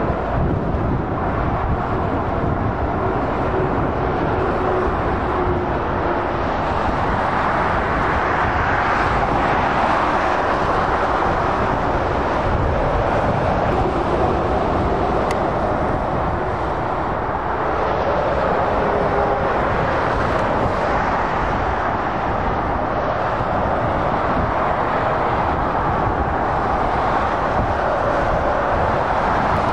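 Steady motorway traffic: tyre noise and engines of lorries and cars passing at speed, swelling and easing as vehicles go by.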